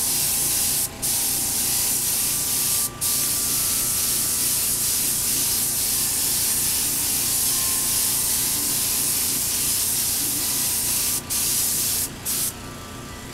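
Compressed-air paint spray gun spraying silver paint onto a motorcycle wheel: a steady hiss of atomising air. The trigger is let off briefly about a second in, again at three seconds, and a few times near the end, where the spraying stops.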